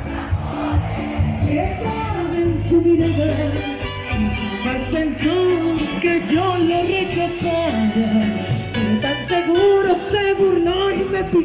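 Live Colombian música popular band playing over a loud concert sound system: a bending lead melody over a steady bass and drum beat.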